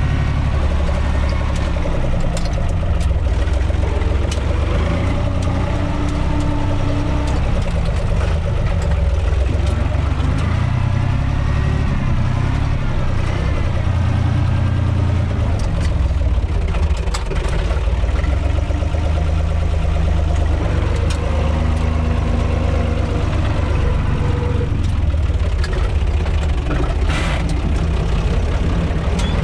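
UTB 445 tractor's four-cylinder diesel engine running steadily, heard from inside the cab, with light rattles and one brief noisy burst near the end.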